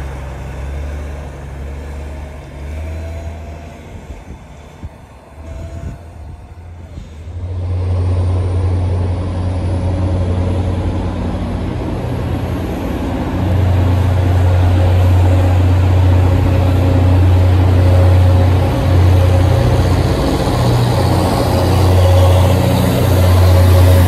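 A city bus's engine pulling away on a snowy road, then from about seven seconds in the loud, steady low drone of an MBTA commuter rail diesel locomotive running close by, growing louder toward the end.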